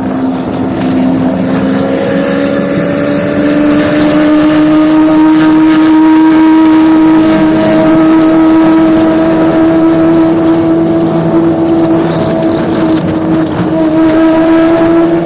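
Loud Lamborghini Aventador V12 engine held at raised revs, its pitch climbing slowly over the first half and then holding steady.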